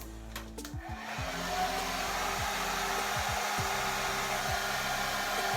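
Handheld hair dryer switched on about a second in, then blowing steadily, drying wig glue until it turns tacky.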